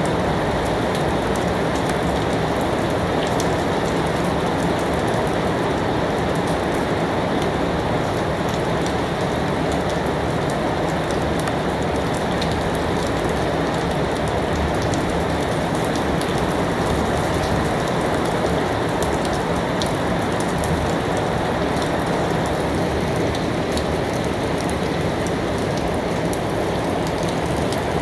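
Steady rain falling: a continuous even hiss with scattered sharp drop ticks.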